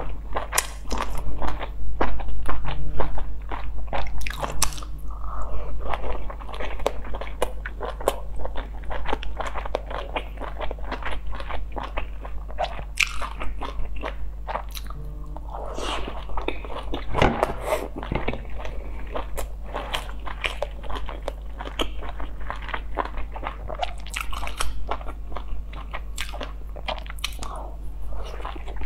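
Close-miked eating of steamed dumplings: a continuous run of biting, wet chewing and mouth smacks, with many small irregular clicks.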